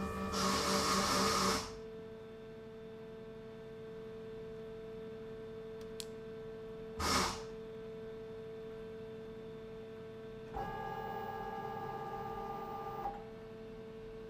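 Milling machine running with a steady hum while drilling screw holes, with a short hissing burst at the start and another about seven seconds in. About ten seconds in, a higher whine joins for a couple of seconds and then stops.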